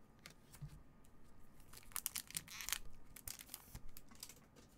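Chrome trading cards sliding and scraping against one another as gloved hands slide them off a stack, in two short scratchy rustles near the middle with a few light clicks.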